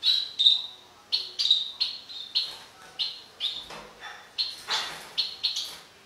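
Finch chirping over and over in short, high calls, about three a second, with a brief rustle a little before the end.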